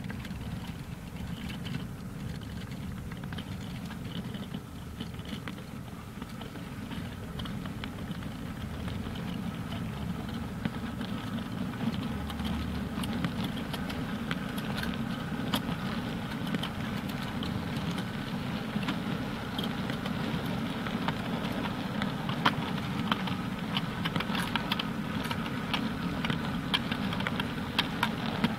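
Model railway goods wagons rolling past over the track: a steady low rumble with many small, irregular clicks from the wheels, getting slightly louder and busier toward the end.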